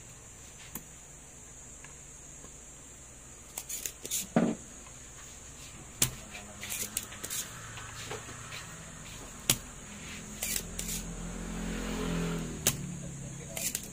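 Spring-loaded desoldering pump (solder sucker) being cocked and fired on solder joints of an amplifier circuit board: a series of sharp snaps and clicks, the loudest about four seconds in. A low rumble swells and fades in the last few seconds.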